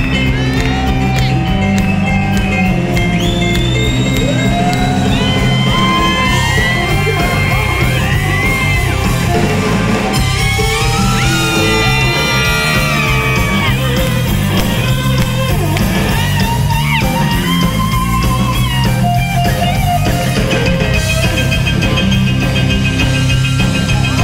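Live rock band playing loud: electric guitar, bass and drums, with sustained lead notes that slide and bend in pitch.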